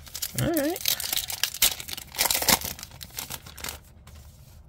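A foil trading-card booster pack being torn open by hand and its wrapper crinkled, a run of crackly rustling that lasts about three seconds and dies away near the end.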